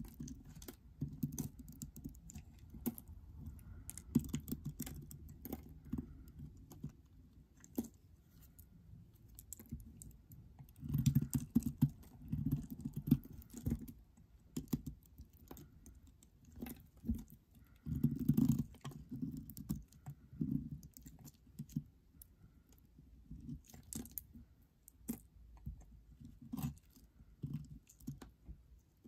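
A snap-off utility-knife blade cutting small crumbly chunks off a dry bar of soap: irregular clicking crackles and scrapes, coming in denser, louder clusters a few times.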